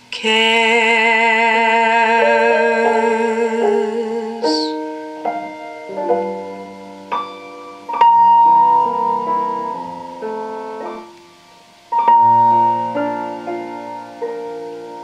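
Recorded song with piano accompaniment. A long held sung note with vibrato ends about four and a half seconds in, and then piano chords carry on alone.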